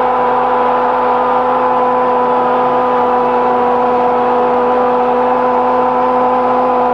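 A football commentator's long, drawn-out shout of 'gol', held on one unbroken pitch for the whole stretch, over the noise of a stadium crowd.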